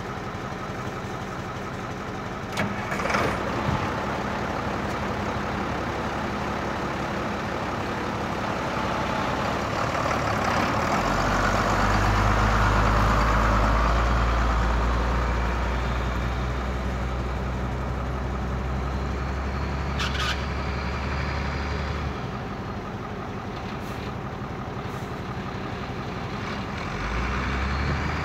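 International water truck's engine idling steadily, louder for a stretch in the middle, with a few brief clicks.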